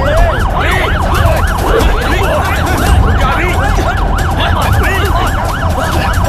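Police car siren yelping, a fast rising-and-falling wail that repeats about four times a second, over the noise of a crowd.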